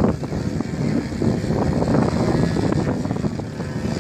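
Engine of a 120 cc Yak 54 radio-controlled aerobatic model plane running steadily in flight, with wind buffeting the microphone.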